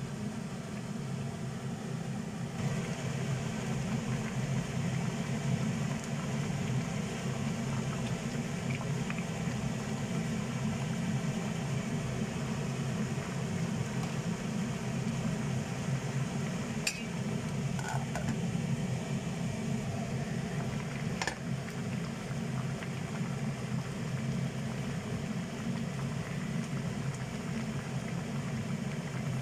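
A pot of vegetable broth at a rolling boil on the cooktop, bubbling steadily, with a couple of faint clicks around the middle.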